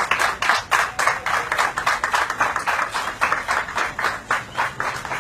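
Audience clapping, a dense, even patter of about five or six claps a second.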